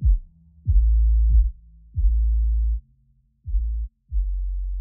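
Bass-heavy electronic background music: a run of deep bass notes, each opening with a sharp falling hit and held for about half a second to a second, with nothing heard above the low range.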